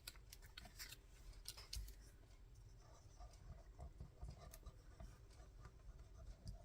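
Faint paper handling: light rustles and small scattered clicks and taps of paper pieces being moved and pressed down on a craft page.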